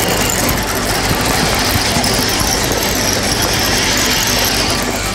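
Fishing reel being cranked steadily while a hooked largemouth bass is played in, a continuous mechanical whir that stops about five seconds in.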